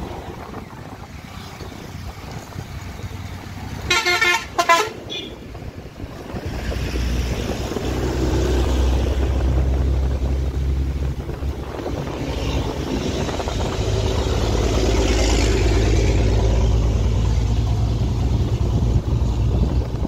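A vehicle horn gives two short toots about four seconds in. Then the steady low rumble of a vehicle's engine and road noise builds up about six seconds in and carries on as it drives along the highway.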